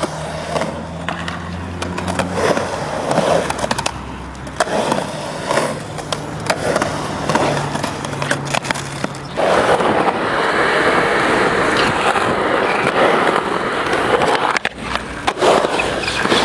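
Skateboard wheels rolling on a concrete bowl, with repeated clacks and knocks of the board. The rolling noise grows louder and denser from about ten to fourteen seconds in. A low steady hum sits under the first half.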